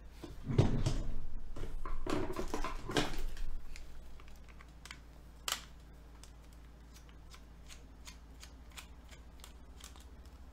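Handling and rustling of a plastic toy dagger for the first few seconds, then faint, irregular small clicks of a small screwdriver working the battery-compartment screw in its handle, with one sharper click about five and a half seconds in.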